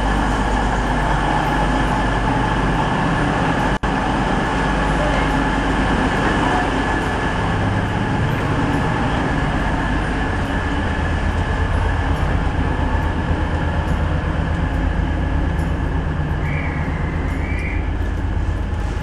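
Diesel passenger train running steadily while stopped at the platform, heard first from alongside it and then from inside the carriage, where its low rumble gets stronger.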